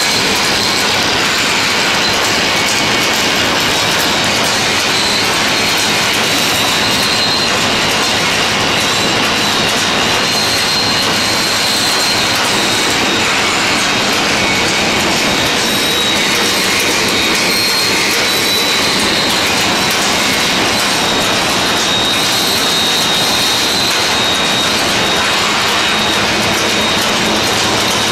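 Automatic pillow-type packaging machine running: a steady, dense mechanical clatter with a faint high whine that comes and goes.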